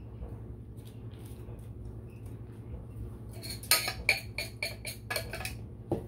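A metal knife scraping and clinking against the inside of a stainless steel saucepan to gather the last of the melted chocolate. It makes a quick run of sharp scrapes with a metallic ring, starting about halfway through, then a single knock near the end as the pan is set down.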